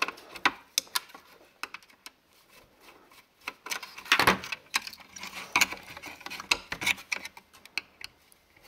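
A screwdriver working at a small circuit board inside a plastic calculator case: scattered sharp clicks, scrapes and rattles, coming thicker in the middle.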